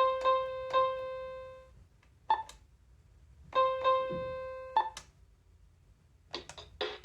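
Battery-powered toy kids' keyboard sounding its electronic voice: the same note is tapped several times in quick succession, and the last one is held for about a second. The same pattern repeats with a couple of short, sharp electronic blips. Near the end a fast electronic drum rhythm starts.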